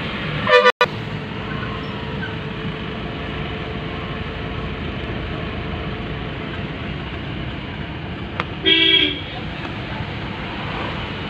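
Steady road traffic noise with two short vehicle horn toots, one right at the start and another about eight and a half seconds in.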